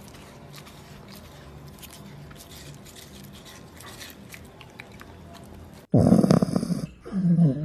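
Golden retriever puppy licking a popsicle: quiet, wet little clicks and smacks. About six seconds in, a much louder dog snore takes over, its pitch sliding down near the end.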